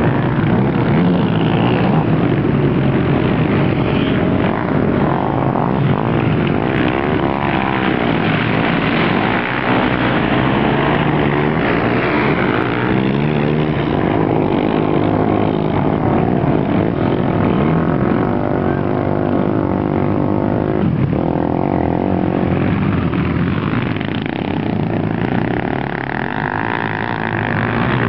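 Racing quad bikes (ATVs) revving hard on a dirt track, engine pitch rising and falling again and again with the throttle, with more than one engine overlapping at times.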